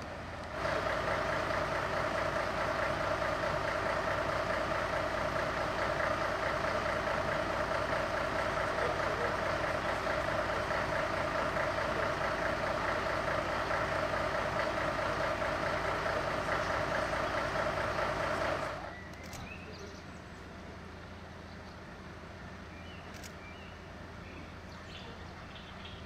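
A machine running with a steady drone and a constant high whine, starting abruptly about half a second in and cutting off about 19 s in. Under it, a diesel engine idles steadily throughout.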